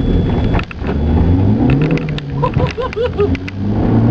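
Turbocharged Skoda Fabia vRS engine accelerating hard, heard from inside the cabin: the engine note climbs, dips briefly about half a second in at a gear change, falls back around the middle, then climbs again near the end.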